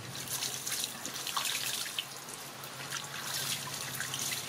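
Water poured from a plastic bowl splashing over a baby monkey's fur and running off a plastic stool.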